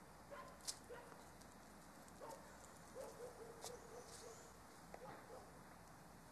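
Faint dog barks and a drawn-out whine, several short calls and one longer wavering one. Two sharp clicks stand out, the louder about a second in.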